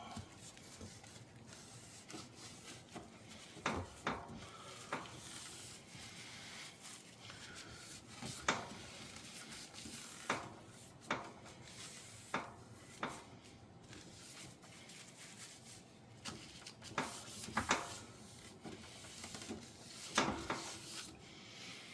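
Paper napkin rubbing and wiping the dishwasher door's panel where the dispenser was removed, with light clicks and knocks scattered throughout.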